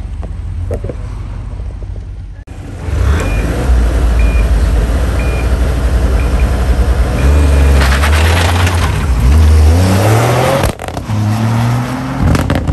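Rally-prepared Toyota GR Yaris with its turbocharged 1.6-litre three-cylinder held at high revs on a stage start line. The start clock beeps four short beeps about a second apart and then a longer one for go. The car launches and accelerates hard, its pitch rising through the gears, and near the end another engine rises again as a car pulls away.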